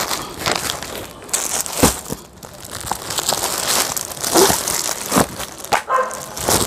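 Clear plastic packaging crinkling and rustling as a bundle of plastic-wrapped garment sets is handled, in irregular bursts with a few sharper, louder crackles.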